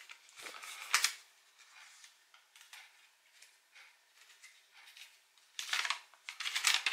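A folded paper slip being unfolded by hand: a brief rustle about a second in, faint crinkles, then louder crackling paper rustle near the end.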